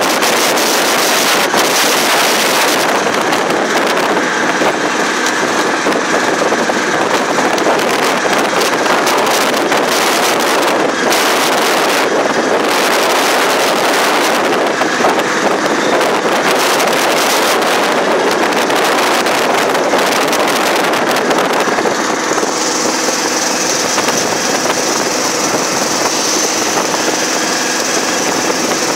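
Auto-rickshaw riding at speed: its small engine running under heavy wind rushing across the microphone through the open sides. About three-quarters of the way through the buffeting eases and the engine's steady hum comes through more clearly.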